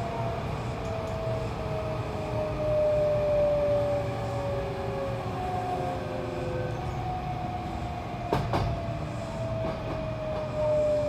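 Hankyu electric train running, heard from the front car: a steady low rumble of wheels on rail with a thin motor whine that slowly falls in pitch as the train slows. One sharp clack about eight seconds in.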